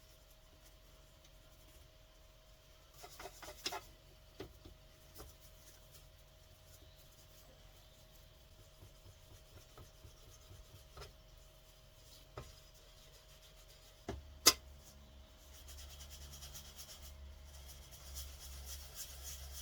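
Hand work on a clock case: scattered light taps and clicks, one sharp knock about three-quarters of the way through, then several seconds of steady rubbing or scrubbing on the surface.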